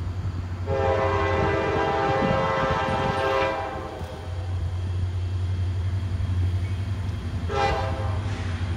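CSX SD40-2 locomotive's multi-note air horn sounding: one long blast of about three seconds, then a short blast near the end, over a steady low rumble.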